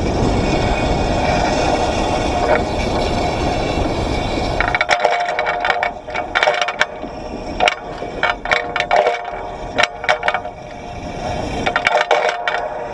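Trolley pole of a moving PCC streetcar running along the overhead contact wire: a steady rumbling noise with a steady hum, then from about five seconds in a rapid, irregular series of sharp clicks and cracks as the pole's shoe rattles and scrapes along the wire.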